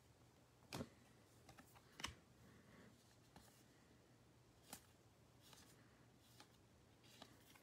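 Faint, irregular clicks and flicks of Bowman baseball cards being slid one at a time off a hand-held stack, with three sharper clicks among softer ones.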